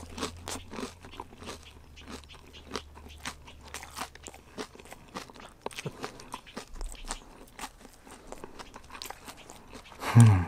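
Close-up chewing of a fried fish sandwich with a cornflake crust: crisp, irregular crunches several times a second. A short, loud voice sound comes right at the end.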